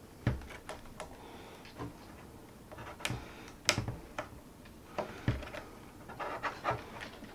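Irregular light clicks and knocks of an iMac's power supply circuit board being worked loose by hand and its remaining cable connector unplugged.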